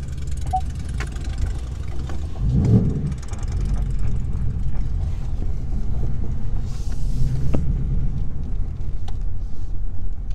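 Ford Mustang's engine and road noise heard inside the cabin as the car moves at low speed through a parking lot: a steady low rumble, swelling louder about two and a half seconds in, with a few light clicks.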